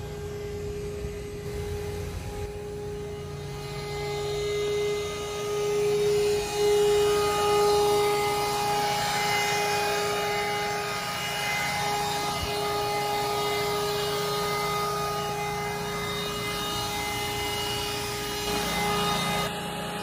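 Vacuum cleaner running with a steady whine over a rushing hiss of air, its hose sucking rainwater out of a flooded car's soaked floor carpet. It comes in about two seconds in and grows louder a few seconds later.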